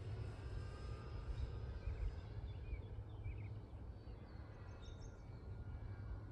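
Distant RC model airplane's motor and propeller, a faint high whine that fades over the first few seconds as the plane flies far off, over a steady low rumble of wind on the microphone. A few short bird chirps come through in the middle.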